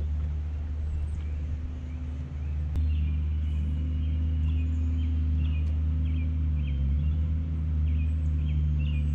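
A motor hums steadily at a low, even pitch, its tone shifting slightly a couple of times. From about three seconds in, a bird chirps short repeated notes over it.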